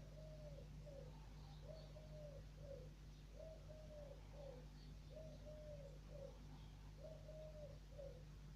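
A dove cooing faintly in a repeated phrase, a longer coo followed by a short one, about five times at a steady pace of roughly one phrase every two seconds, over a steady low hum.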